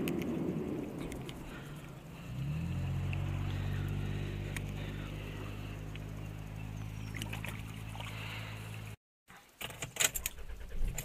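An engine running steadily comes in about two seconds in, rising briefly and then holding an even hum, with a few small clicks over it. After a short break near the end, keys click and jangle at a car's ignition.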